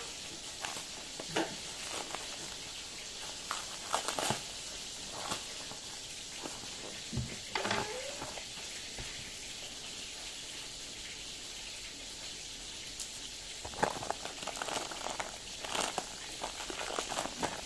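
Clear plastic bag crinkling and rustling in the hands in short scattered crackles, coming thicker near the end, over a steady faint hiss.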